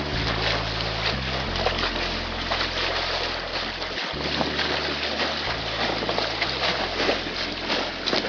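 Water rushing and splashing along a sailing yacht's hull as it moves through the sea, with wind noise on the microphone.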